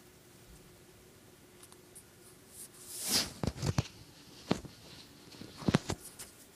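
Handling noise from a phone being moved: a short rustle about three seconds in, then several sharp taps and knocks over the following three seconds.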